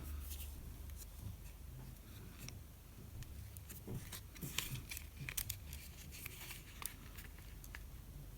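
Faint, irregular small clicks and taps as a ribbon connector and small phone parts are handled and pressed into place inside an iPhone 5s, busiest around the middle, over a low steady hum.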